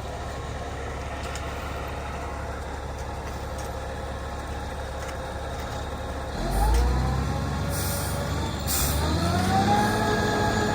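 Concrete mixer truck's diesel engine idling, then revving up twice in rising steps and holding at a higher speed to turn the drum faster while it empties. Two short hisses of air are heard near the second rev.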